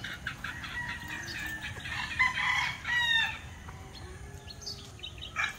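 A gamecock rooster crows once, a call of about a second and a half starting about two seconds in, while other chickens cluck around it.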